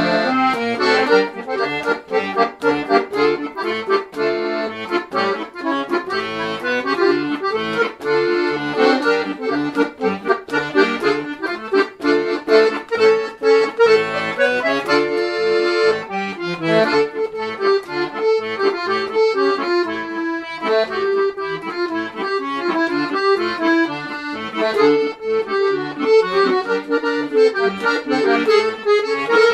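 Accordion playing a melody with chords over short, repeated bass notes.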